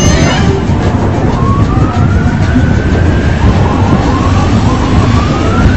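A siren wailing in two slow rising sweeps over a loud, steady rumbling noise.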